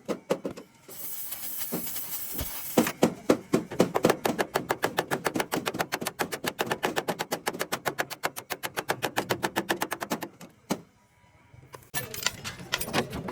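Rapid, even series of sharp strikes on metal, several a second, as in hammering or tapping truck bodywork. A hiss comes in near the start, the strikes stop briefly near the end, then start again.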